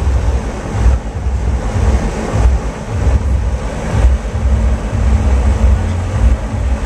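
Wind noise from a fan's airflow buffeting the microphone: a loud, uneven low rumble that rises and falls, with a steady hiss over it.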